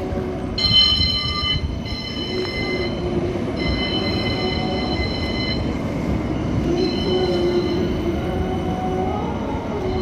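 West Midlands Metro CAF Urbos tram running past close by on street track, over a steady rumble. High-pitched wheel squeal comes and goes in stretches of one to two seconds, several times.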